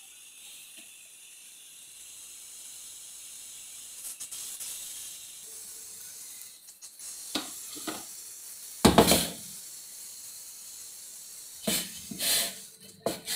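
Electric mixer grinder running with a steady high hiss as it grinds chutney in its steel jar, stopping about halfway through. Then come knocks and clatter as the steel jar is handled and lifted off the motor base, with the loudest thud about nine seconds in.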